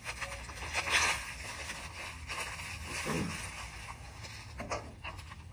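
Plastic wrapping rustling and crinkling as it is handled, in irregular bursts, the loudest about a second in.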